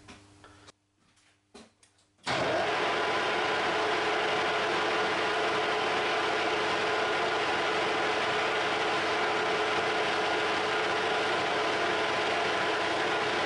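Harrison M300 metal lathe switched on about two seconds in, then running steadily at speed: a constant mechanical hum and whine with several steady tones. A few faint clicks come before it starts.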